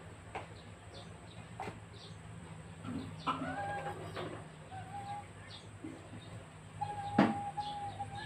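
Chicken clucking in a series of short calls, with a longer run of calls near the end. A few sharp knocks come through as well, the loudest about seven seconds in, over a steady low hum.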